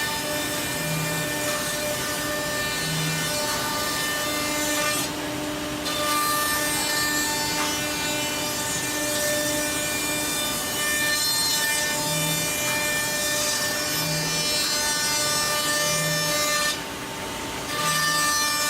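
CNC router spindle cutting grooves in wood: a steady whine with the rasping of the cut, dropping briefly twice, about five seconds in and near the end.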